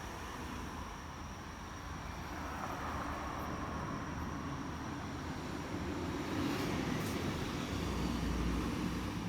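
A passing vehicle, a steady rushing noise that builds slowly and is loudest in the last few seconds, with a low rumble near the end. A faint steady high-pitched tone runs underneath.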